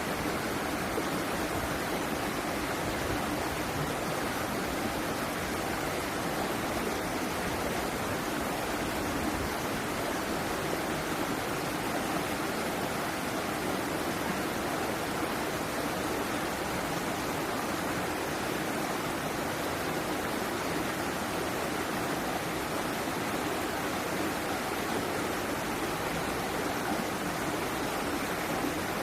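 Flowing water rushing steadily and evenly, with no breaks or splashes standing out.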